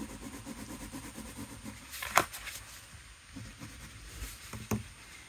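Watercolour crayon scribbling quickly back and forth on paper, stopping about two seconds in; two light clicks follow, one about halfway and one near the end.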